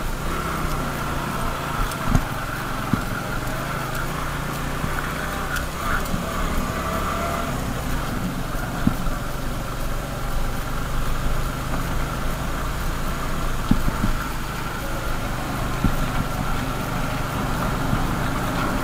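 Motorcycle engine running steadily under load, pulling up a steep, rough dirt track, over a haze of wind and road noise. A few sharp knocks come through along the way.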